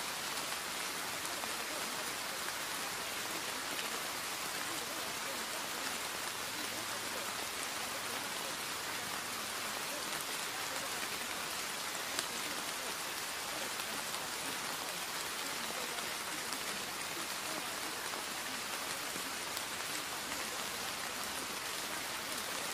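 Steady rain-like hiss with a fine patter of drops, even and unchanging throughout, used as the masking track of a subliminal audio. One brief tick sounds about twelve seconds in.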